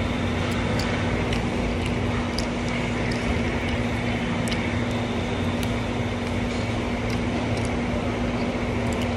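Close-up eating sounds: a few faint scattered clicks of chewing and biting into chicken pieces eaten by hand, over a steady low machine hum with one constant tone.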